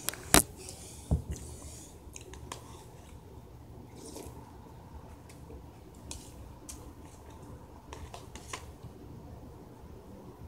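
Two sharp knocks in the first second or so as the handheld recording device is handled and set in place. Then soft chewing and small scattered clicks of someone eating cereal and sipping through a straw, over a faint low hum.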